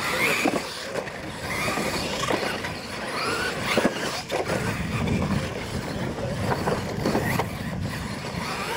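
Losi LMT radio-controlled monster trucks racing on a dirt track: brushless electric motors whining up and down in pitch as the throttle changes, tyres scrabbling on dirt, and several sharp knocks as the trucks hit and land off the jumps, the loudest a little under four seconds in.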